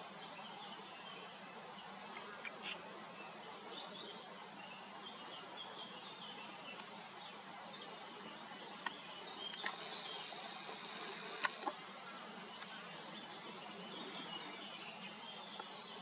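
Faint outdoor ambience: a steady low hiss with scattered faint high-pitched chirps, and a few sharp clicks about halfway through. The crows are not calling.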